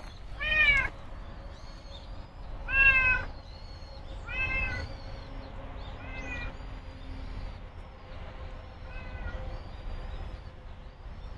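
A domestic cat meowing five times, each meow short. The first two are the loudest and the later ones are fainter.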